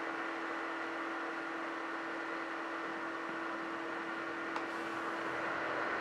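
OMISOON compact dehumidifier's fan running steadily: an even rush of air with a low steady hum. A faint tick about four and a half seconds in.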